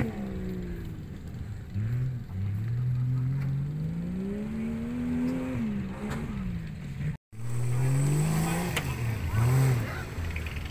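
Off-road 4x4's engine revving up and down repeatedly, its pitch rising and falling as the throttle is worked. The sound cuts out for a moment about seven seconds in.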